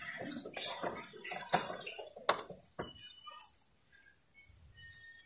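Small clicks and rustling from hands handling wires and a circuit board, dense for about three seconds, then a few scattered faint ticks.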